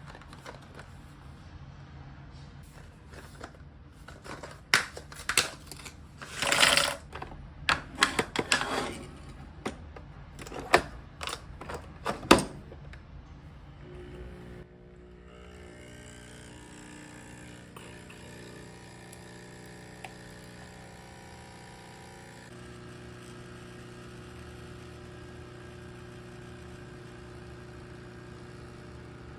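A run of sharp clicks and knocks from handling objects, with a short noisy burst about seven seconds in, over soft background music; about halfway through the handling sounds stop abruptly and only the steady background music remains.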